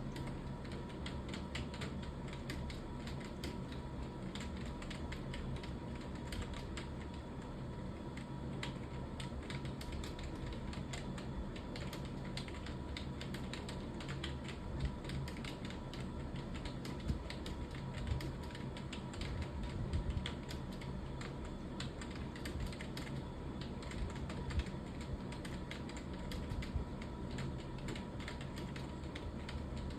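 Fast, continuous typing on a computer keyboard: a quick irregular stream of key clicks, a few struck harder than the rest, over a faint steady hum.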